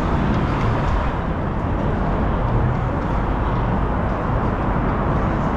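Steady vehicle and road noise, even throughout with no distinct events.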